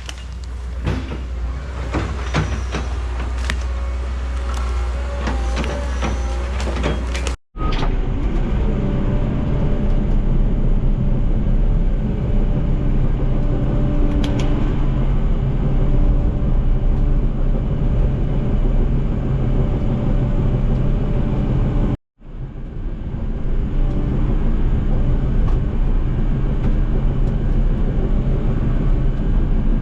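Diesel engine of heavy earthmoving equipment running steadily under load, in three clips cut together. The first clip has a deep hum with scattered knocks and clanks.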